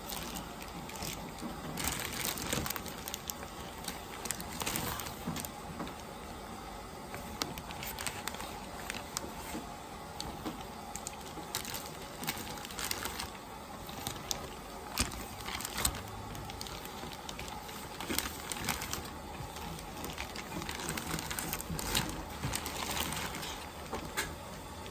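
Clear plastic poly bags crinkling and rustling as they are handled, in uneven spells with small crackles and clicks.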